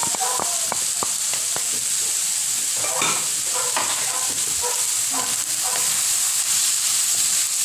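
Diced carrot, onion and green bell pepper sautéing with a steady sizzle in a pan. A wooden spatula stirs and scrapes them, its taps and scrapes thickest about three to four seconds in.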